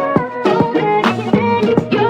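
Background music: a plucked or bowed melody in a Middle Eastern folk style, set over a steady beat.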